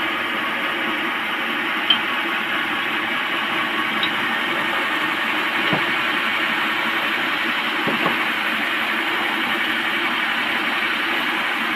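Sawmill saw running steadily, a constant mechanical noise with a few faint knocks.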